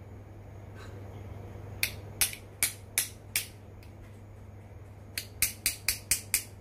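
Sharp taps of metal pliers knocking the bearing end cap onto the shaft of a robot vacuum's main brush to seat it. The taps come in two runs: five evenly spaced a couple of seconds in, then six quicker ones near the end.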